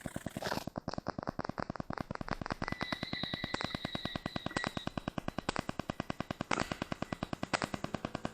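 Rapid, even clicking, about nine a second, from a motorcycle coasting downhill with its engine switched off; a thin high whistle joins it for a couple of seconds in the middle.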